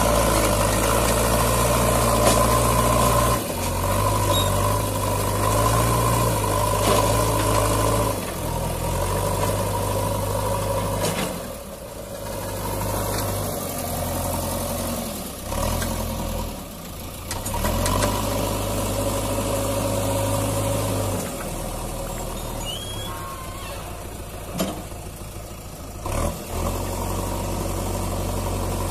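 JCB 3DX backhoe loader's diesel engine running as the machine works, its note rising and dropping several times as the load changes, with a few sharp knocks in the later part.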